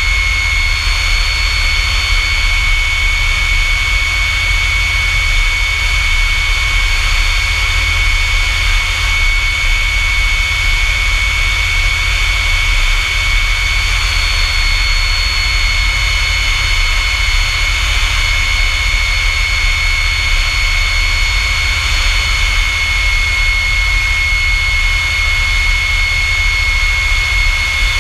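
North American F-100 Super Sabre's J57 turbojet running steadily: a constant high whine over a low rumble, with no change in pitch.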